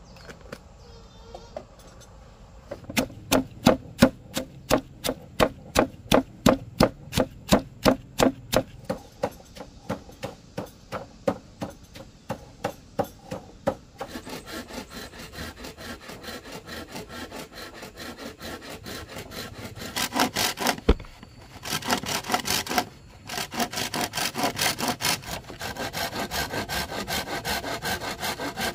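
Saw cutting through wood in rhythmic back-and-forth strokes, about two a second at first, then faster and closer together from about halfway, with two short pauses near the end.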